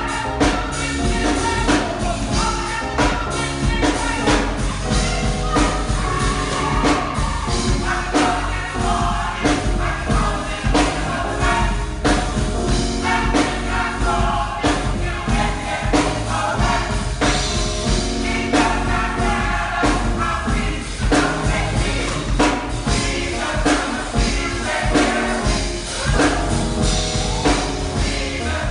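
Gospel choir singing with a band and a steady drum beat.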